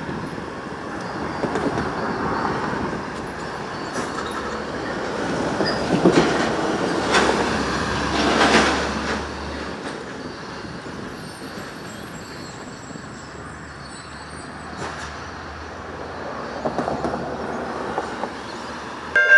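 Adelaide Metro 4000-class electric multiple unit pulling away from the station, running on the track with a cluster of clicks and clacks from the wheels, loudest about six to nine seconds in, then fading as it moves off.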